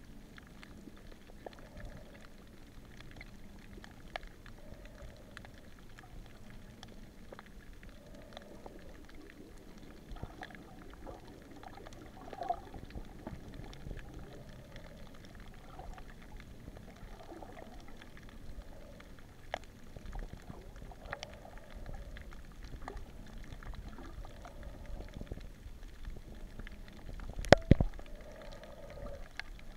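Underwater ambience picked up by the filming camera: soft gurgling swishes of water every couple of seconds, scattered faint clicks, and a sharp knock about two seconds before the end.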